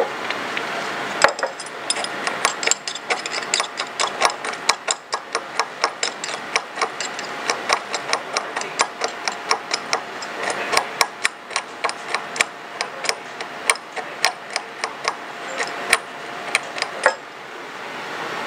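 A small metal hand tool clicking and tapping in quick, irregular succession, several sharp clicks a second, starting about a second in and stopping near the end, as an oversized PPC bead is cut into smaller pieces. A steady room hum runs underneath.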